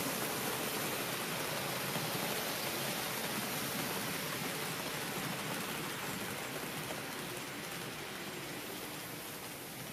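HO-gauge model train of old-type passenger coaches rolling along layout track: a steady, even wheel-on-rail rumble that fades gradually as the last cars pull away.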